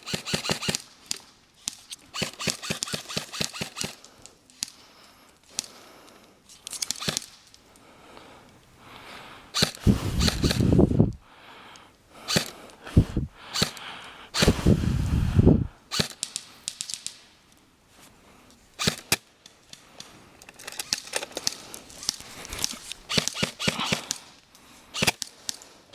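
Airsoft guns firing in repeated bursts of rapid sharp snapping clicks, with pauses between the bursts. Two louder low rumbles come about ten and fifteen seconds in.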